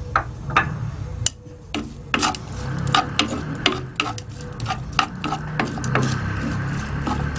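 A spoon stirring chopped onion with oil, spices and salt in a tajine, scraping against the dish in many short, irregular strokes.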